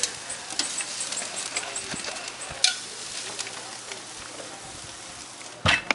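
Greens sizzling on the hot grate of a Big Green Egg ceramic charcoal grill, with metal tongs clicking against the grate as they turn and lift them. A sharp click about two and a half seconds in, and a heavy thump near the end, the loudest sound.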